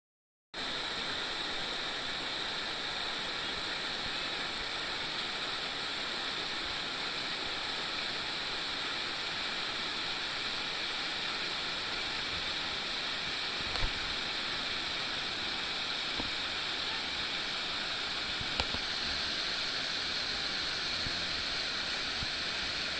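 Waterfall and river rapids rushing steadily, white water pouring over rock ledges. Two brief low thumps sound past the middle.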